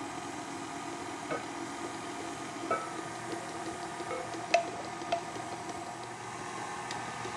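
KitchenAid Artisan stand mixer running steadily at low speed, its paddle beating flour into cookie dough in a glass bowl, with a few light clicks scattered through.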